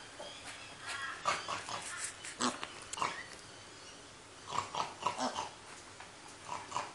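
A piglet's short calls in several bursts, with quieter gaps between.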